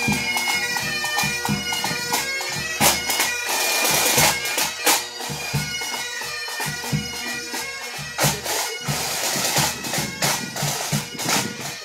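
Marching pipe band playing: bagpipes sounding a tune over their steady drones, with drum strikes throughout.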